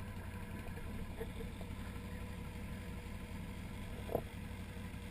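Can-Am Outlander 1000 ATV's V-twin engine idling steadily, with a brief short sound about four seconds in.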